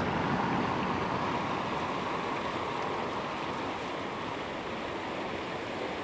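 Water of a small river rushing steadily at an old water wheel, a continuous noisy rush that slowly grows fainter.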